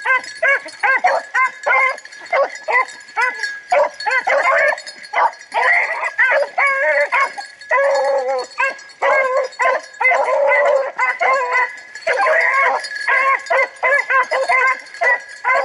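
Several rabbit hounds baying and yelping almost without pause while working a rabbit's scent through the brush, many calls a second overlapping.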